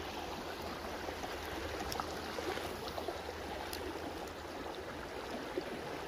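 Creek water rushing steadily over shallow riffles and rocks.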